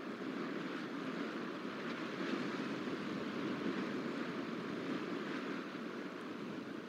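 Steady rushing outdoor background noise that stays even throughout, with no distinct calls or knocks.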